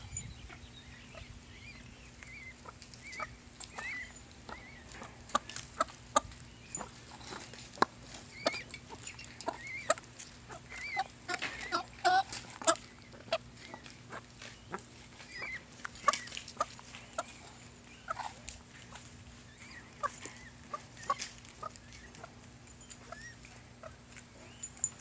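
Black Shoulder hybrid peahen giving her repeated soft clucking food call, summoning her chicks to treats, with short chirpy calls and scattered sharp taps through it.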